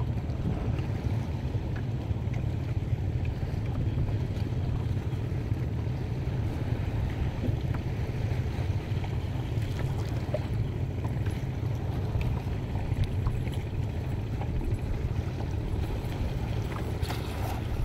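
Wind buffeting the microphone over choppy shallow sea water, a steady low rumble with the wash of small waves, and a few faint clicks.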